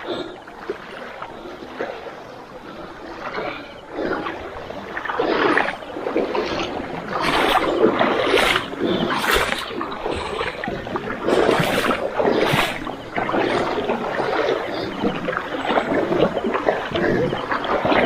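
Footsteps and rustling through grass and undergrowth, an irregular crackling that grows louder about four seconds in as the walkers push on through the vegetation.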